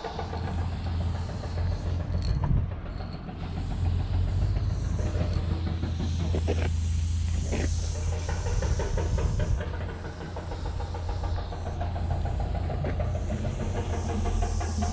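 Aerosol spray paint can hissing as paint is sprayed through a four-needle skinny cap adapter, with a brief break about halfway through, over a steady low rumble.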